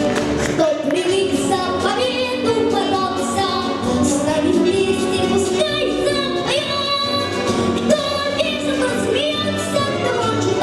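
A girl singing a lively song over an instrumental accompaniment with a steady beat.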